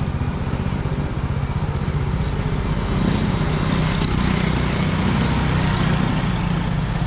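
Motorcycle engine running steadily, its rapid low firing pulses under a hiss of wind and road noise that grows a little louder from about three seconds in.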